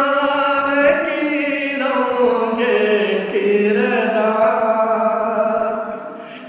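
A man's voice singing a slow, chant-like devotional invocation, holding long notes that glide between pitches, with a short breath near the end.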